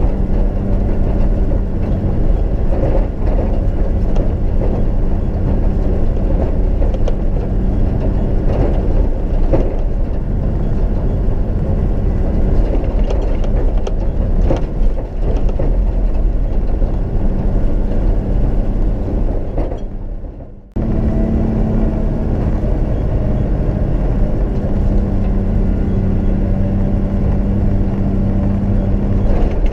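Four-wheel-drive vehicle driving on a deep sandy track, heard from inside the cabin: a steady engine drone with scattered knocks and rattles from the body over the ruts. About twenty seconds in, the sound fades away for a moment and then cuts back in abruptly.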